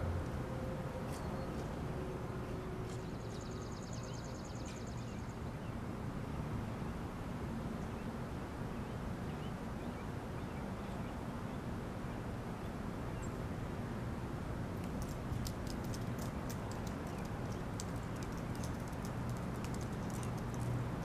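Outdoor background noise: a steady low rumble and hiss, with a short high trill about three seconds in and a run of sharp clicks over the last several seconds.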